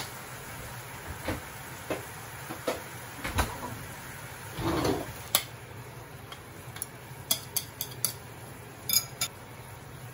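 Cooking utensils clicking and tapping at irregular intervals as chopsticks scrape beaten egg out of a plastic bowl into a frying pan, with one longer scrape a little before the middle, over a steady low hum.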